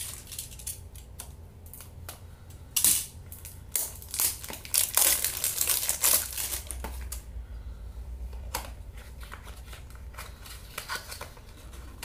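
Hands unwrapping a small skincare product's packaging: crinkling, rustling and tearing sounds in irregular bursts, busiest from about three to seven seconds in.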